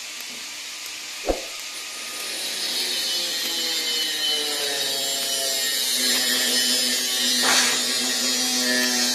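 TIG welding arc on thin 304 stainless steel pipe: a single sharp click about a second in, then a steady hissing buzz that builds over the next couple of seconds, with a steady hum joining it about six seconds in.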